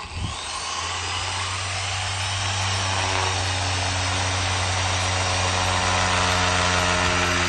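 Orbital sander starting up with a brief rising whine, then running steadily on a wooden tabletop, a steady motor hum under the hiss of the pad sanding off old paint.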